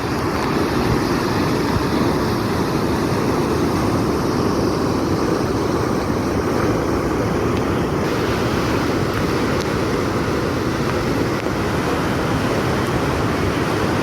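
Steady, loud rush of fast-flowing floodwater, an even roar without pitch.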